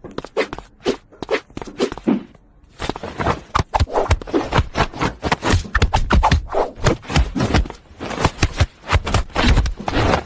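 Rough scraping and rubbing noises in quick, uneven strokes, nearly continuous after the first few seconds.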